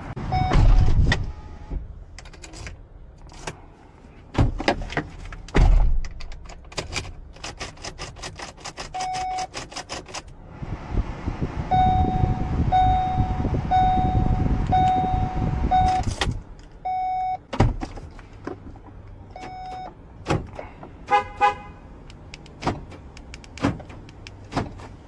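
A car being worked with a newly duplicated key and remote: many sharp clicks of the car's locks and buttons, a run of short electronic beeps through the middle, and a steady whir of the power windows running for about six seconds.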